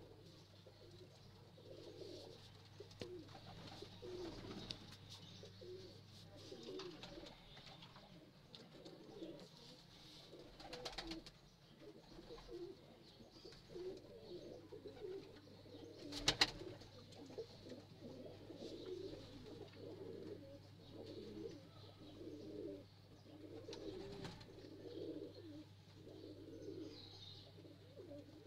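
Bankay high-flyer pigeons cooing, repeated low throaty coos one after another. A single sharp click about midway is the loudest sound.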